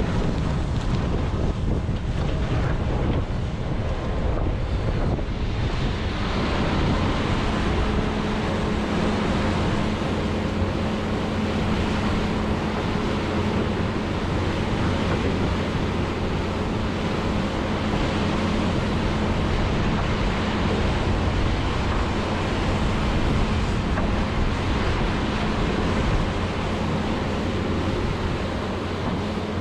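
John Deere 210G excavator's diesel engine running steadily under working load while digging frozen peat moss; about six seconds in its note settles into a steadier, higher hum that holds.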